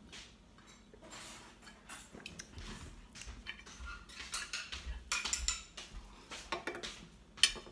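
Knife and fork scraping and clinking on a plate while a slice of roast beef is cut and eaten, with one sharp clink near the end.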